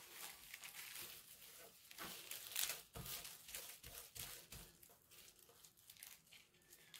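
Hands rubbing and pressing a plastic zip-top bag flat against a plastic shopping bag, a faint, irregular crinkling of plastic as wet marker ink is spread inside. It is a little louder about two to three seconds in and thins out near the end.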